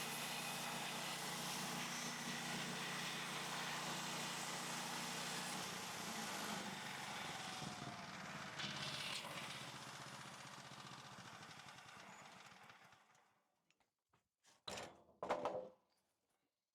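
MechMaxx portable bandsaw sawmill running steadily. It is then shut down and winds down, its pitch sliding lower and the noise fading out over a few seconds. A few short knocks follow near the end.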